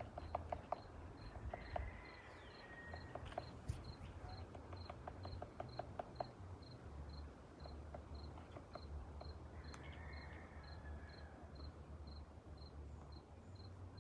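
Outdoor ambience with a high, thin chirp repeating evenly about twice a second throughout, over a low background rumble. Scattered sharp taps come in the first half, and two brief drawn-out calls sound about two and ten seconds in.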